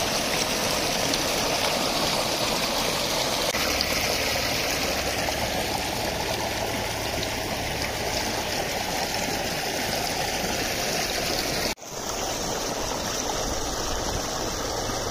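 Steady rush of running, splashing water, briefly cut off about twelve seconds in.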